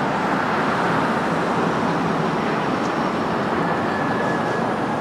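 Steady traffic noise of a busy city street: a constant wash of passing vehicles, with a faint thin tone entering near the end.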